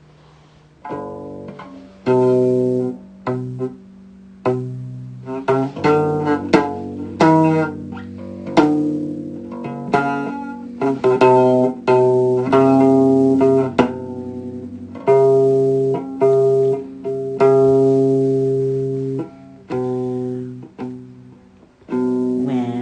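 Guitar music: plucked notes that ring and fade, over a held low bass line.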